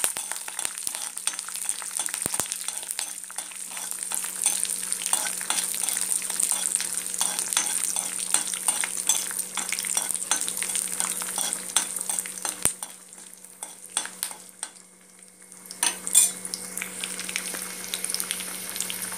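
Peanuts and curry leaves frying in hot oil in a kadai: a steady sizzle full of crackling pops, with stirring in the pan, over a low steady hum. The sizzle quietens for a few seconds about two-thirds through, then comes back with a loud pop.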